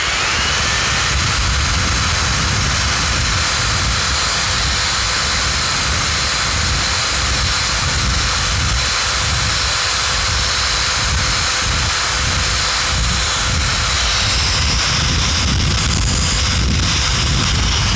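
Electric drill running steadily with a 5/32 bit, drilling out the rivet that holds a steel padlock body together. It spins up at the start, holds a steady whine, and winds down near the end.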